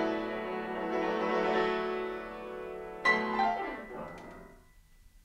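Grand piano playing held chords, then a new chord struck about three seconds in with a short falling run, ringing out and fading away.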